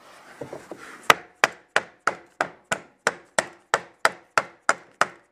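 Hammer striking a scrap wood block in a steady run of sharp knocks, about three a second, starting about a second in. The blows tap a laminate floor plank sideways to close its snap-together joint.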